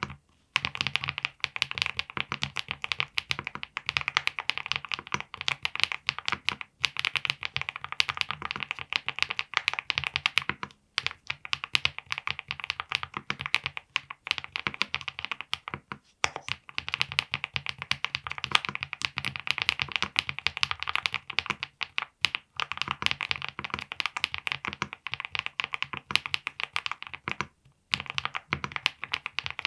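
Fast, steady typing on a VXE75 mechanical keyboard fitted with lubed HMX Cheese linear switches, a PC plate and full foam: a dense stream of key clacks, broken by a few brief pauses.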